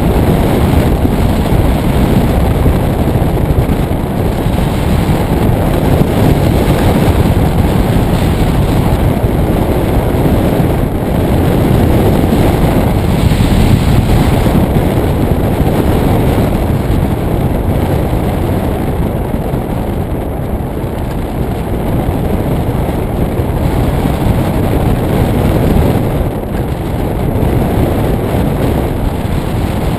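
Loud, steady rush of wind buffeting the microphone in flight under a hang glider, a low rumbling noise that eases slightly now and then.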